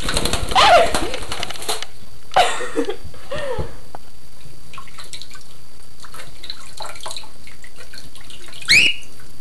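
Bath water splashing, loudest in the first two seconds, over a steady wash of running water. Near the end a cockatiel gives one loud, rising call of protest.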